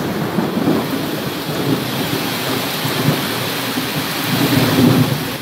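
Floodwater rushing in a torrent down a flooded street: a loud, continuous rush of turbulent water.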